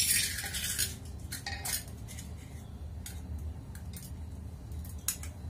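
Rice and moong dal being washed by hand in a small bowl at the kitchen sink: a brief splash of water at the start, then a few light clinks and knocks of the bowl, over a steady low hum.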